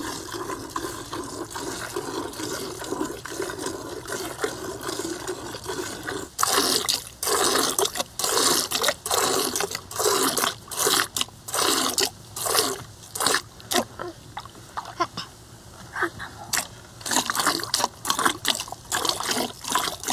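A cow being milked by hand: milk squirting into a pail in quick, regular strokes, about two a second, starting a few seconds in, with a short break past the middle.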